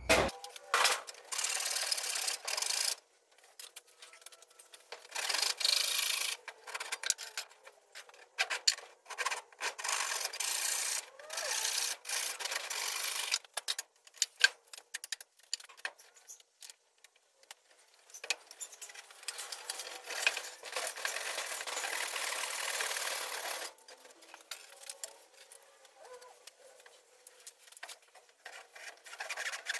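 Sped-up time-lapse audio of work on a timber anvil stand: repeated bursts of high, rasping noise broken by short gaps and scattered clicks.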